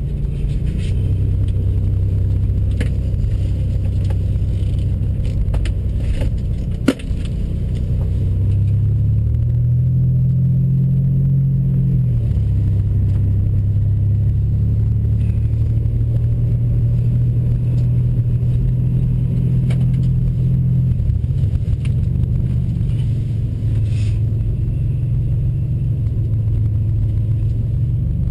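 Turbocharged 4.0-litre V6 of a 2007 Ford Mustang with a dual exhaust, running at low speed with a steady low rumble. The engine note rises slightly for a few seconds about a third of the way in, then settles again. A single sharp knock comes about seven seconds in.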